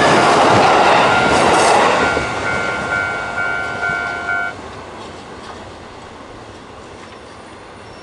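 An E233-series electric commuter train passes close by over a level crossing with a loud, steady rumble of wheels on rail. From about two seconds in, the crossing's warning bell rings with repeated dings over the fading train. Both stop abruptly after about four and a half seconds, leaving only faint, distant rail noise.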